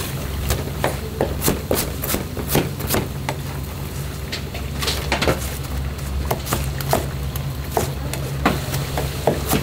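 Irregular knocks and clatter of restaurant kitchen work, roughly two a second and unevenly spaced, over a steady low hum.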